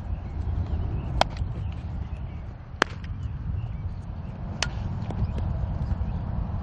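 Wind buffeting the microphone with a steady low rumble, broken by three sharp cracks about a second and a half apart from a softball being struck during fielding practice. Birds chirp faintly.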